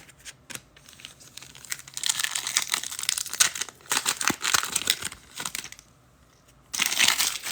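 Foil wrapper of a football trading-card pack crinkling as it is torn open and handled, after a few light clicks. There are two stretches of crinkling, a longer one and a short one near the end.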